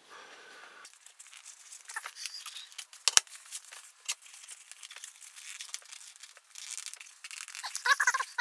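Rustling and scraping of a black padded filter case being handled and opened, with one sharp click about three seconds in.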